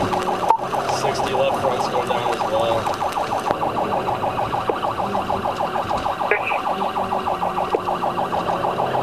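Police car siren sounding in a fast, evenly pulsing pattern, heard from inside the pursuing patrol car.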